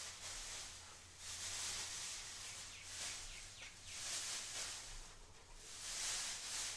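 Large clear plastic bag rustling and crinkling in repeated bursts as it is shaken open and handled.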